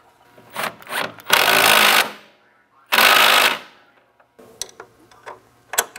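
Cordless impact driver running in two short bursts, a second or so apart, as it drives the bolts holding the turbo's exhaust cradle to the snowmobile's footwell. Sharp clicks and knocks of the tool and metal parts come before and after.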